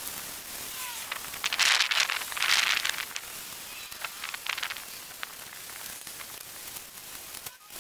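Wet sanding of a plastic car headlight lens with fine 1500-grit sandpaper, a soft steady rubbing, broken about three times by short hissing spritzes from a trigger spray bottle of water wetting the paper and lens.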